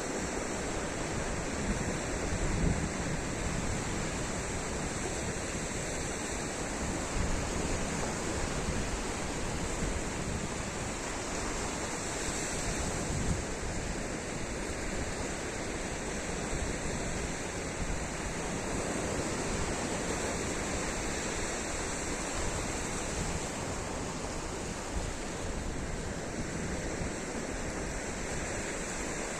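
Sea waves washing onto the beach in a steady surf, with gusts of wind rumbling on the microphone.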